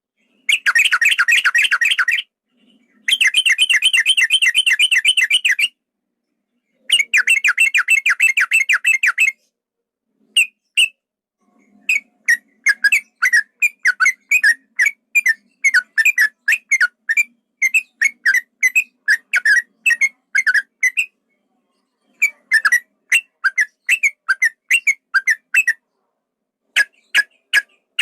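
Sooty-headed bulbul (trucukan) singing loudly. It opens with three long runs of rapid trilled notes, the 'ropel panjang' rolling song, then after a pause gives a long series of separate short whistled notes, about three a second, in groups with brief breaks.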